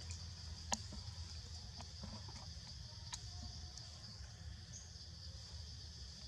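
Forest ambience: a steady high insect drone over a low rumble, with a sharp click just under a second in and a fainter one about three seconds in.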